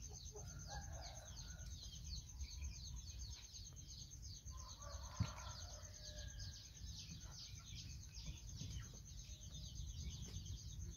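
Faint backyard ambience of hens clucking, over rapid repeated high chirps and a constant thin high tone. A single sharp click about five seconds in.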